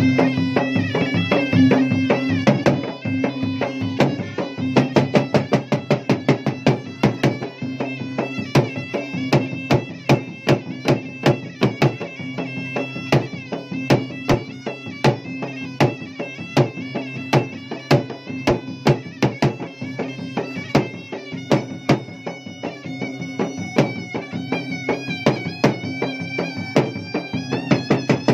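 Bugis-Makassar gendang ensemble: a pair of double-headed ganrang drums beaten with sticks in a fast, dense rhythm. Over the drums a puik-puik shawm plays a continuous, nasal, reedy melody.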